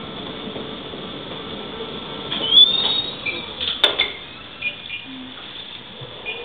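Electric mobility device running with a steady hum. About two seconds in comes a short squeal, then a series of clicks and knocks, the loudest a sharp knock near the middle.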